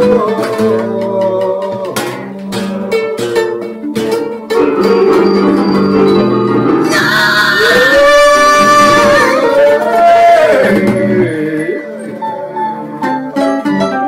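Solo music: an acoustic guitar strummed and plucked, joined by an electronic keyboard. A man sings long, sliding notes in the middle.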